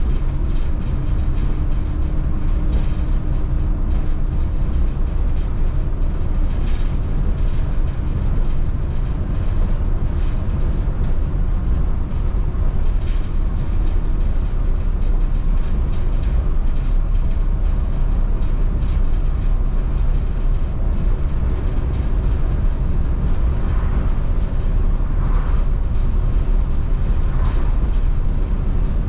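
Steady low rumble of a 2002 MCI D4500 coach conversion under way at road speed: engine drone and road noise heard from inside the bus.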